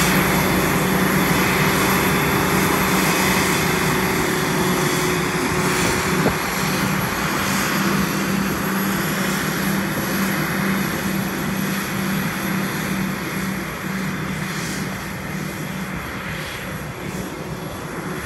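CLAAS Jaguar forage harvester chopping maize, its big diesel engine and chopper running under steady load with the rush of chopped crop blown through the spout, along with the tractor pulling the trailer beside it. It fades slowly, and a steady tone in the drone drops out about six seconds in.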